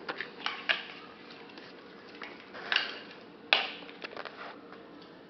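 Hard plastic toy parts clicking and knocking together as they are handled and pushed at to fit, in a handful of scattered taps, the loudest about three and a half seconds in.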